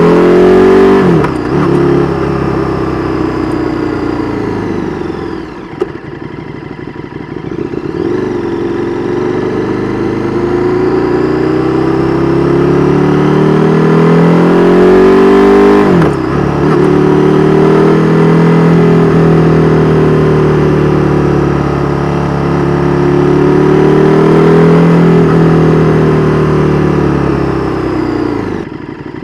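KTM 1290 Super Duke R Evo's V-twin engine through an Austin Racing V3 Mini exhaust, riding on the road. The revs climb and drop sharply at gear changes about a second in and about halfway through, with stretches of easing off and steady running between, and they fall away near the end.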